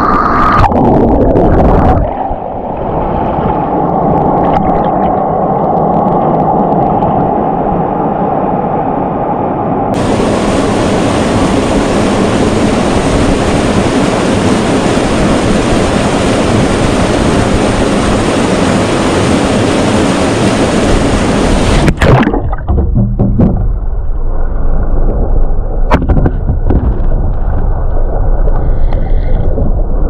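Loud, steady rushing of a waterfall, its sound changing abruptly at cuts about 2, 10 and 22 seconds in.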